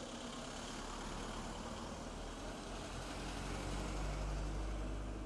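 A motor vehicle's engine running steadily at idle amid outdoor noise, growing slightly louder about four seconds in.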